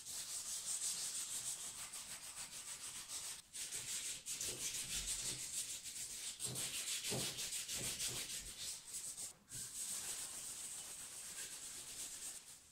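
600-grit sandpaper rubbed back and forth by hand over a black telephone housing: a continuous, high scratching hiss with short breaks about three and a half and nine and a half seconds in.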